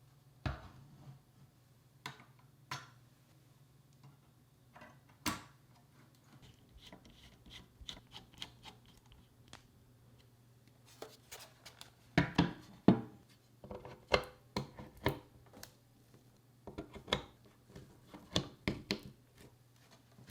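Irregular clicks, taps and light knocks of computer hardware being handled and fitted together, with a denser run of sharper knocks about twelve seconds in. A faint steady low hum runs underneath.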